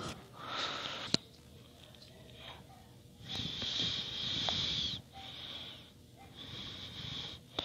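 A person breathing audibly close to the microphone: four long, hissing breaths. There is a single sharp click about a second in.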